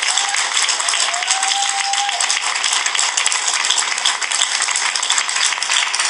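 An audience applauding with dense, steady clapping after an award winner's name is called.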